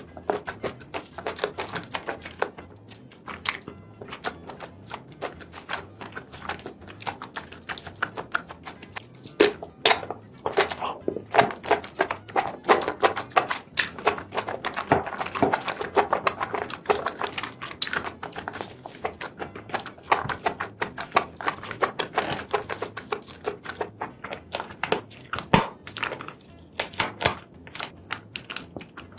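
Close-miked chewing of seafood: a dense run of quick wet clicks and crackles from the mouth, busier from about nine seconds in. Near the end comes the wet tearing of a lobster's shell being pulled apart by hand.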